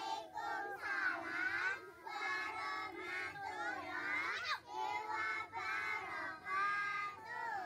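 A group of young children's voices in chorus, many voices together in a drawn-out sing-song with long held notes.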